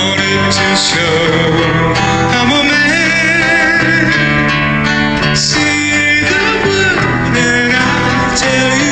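Music: a song with guitar and a singing voice whose held notes waver with vibrato.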